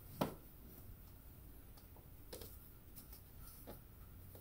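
Cardboard toy box with a clear plastic window being handled and turned over by hand: one sharp knock just after the start, then a few light taps and clicks.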